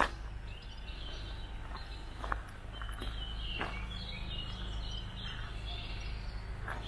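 Birds chirping over a steady low outdoor rumble, with a few scattered footsteps crunching on gravel.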